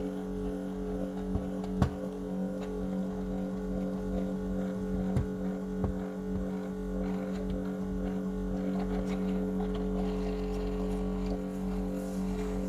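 A steady low machine hum of even tones, with a few small clicks scattered through it.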